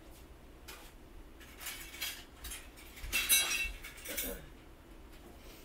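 Loose small metal hardware being rummaged through by hand, clinking and rattling in a series of clatters from about a second and a half in until past four seconds, loudest just after three seconds.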